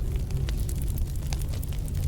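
Wood fire crackling in a fireplace, with scattered sharp pops, over a steady low rumble of snowstorm wind.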